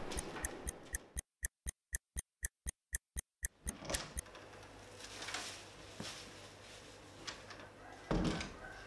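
A clock ticking, added as a sound effect: sharp ticks about four a second for roughly four seconds, with dead silence between them. Then quiet room tone, and near the end a short clack of a door handle and latch as a door is opened.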